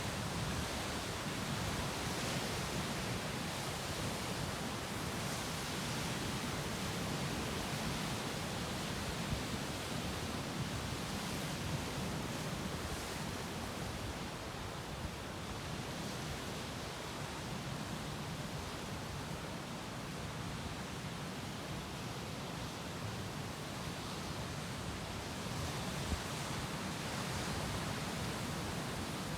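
Sea waves breaking against rocks: a continuous rushing surf that swells and eases slowly, a little softer in the middle.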